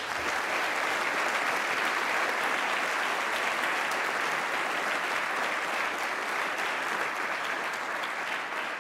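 Audience applauding steadily after a lecture ends, a dense patter of many hands clapping.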